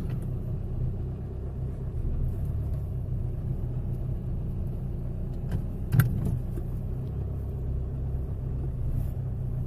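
Honda Civic engine idling steadily, heard from inside the cabin, with a single sharp click about six seconds in.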